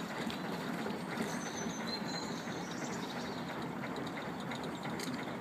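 Stern paddlewheel of a diesel-driven narrowboat turning, its paddles churning the canal water in a steady rapid rhythm, with the boat's diesel engine running underneath.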